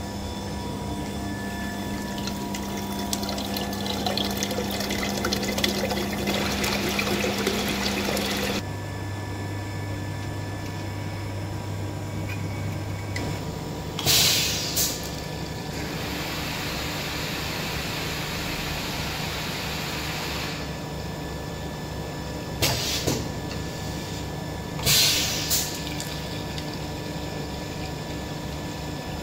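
Pneumatic paste-filling machine running: a steady motor and pump hum with a rushing, water-like wash, whose pitch shifts twice in the first half. Three short, sharp hisses of air cut in, once about halfway through and twice near the end, as the filling nozzle cycles.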